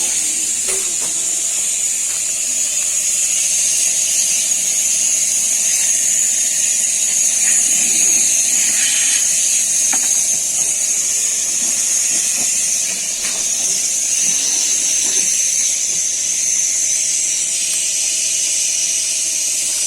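Steady loud hiss with a high-pitched whine held at one pitch, and a few faint clicks.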